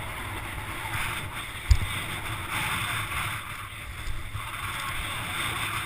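Strong wind buffeting a camera microphone: a low, uneven rumble over a steady hiss, with one sharp thump a little under two seconds in.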